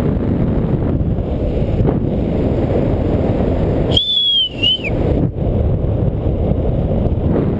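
Wind rushing over the camera microphone of a paraglider in flight, a steady noisy rush. About four seconds in the wind noise drops away and a short clear whistle sounds, dipping slightly in pitch and then rising again, lasting under a second.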